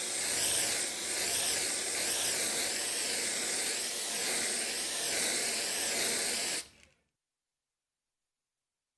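Aerosol spray-paint can spraying in a continuous hiss that swishes slowly up and down in tone, about once a second, then cuts off sharply about seven seconds in.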